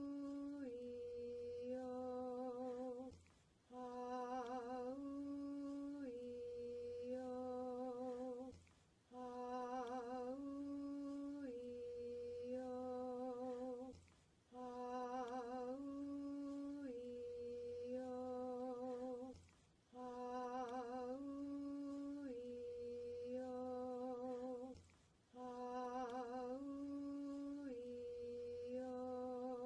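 A single voice sings the vowel chant "Ah-oo-ee-oh" again and again. Each vowel is held at equal length, with small steps in pitch between them. Each phrase lasts about five and a half seconds, with a brief breath between repeats.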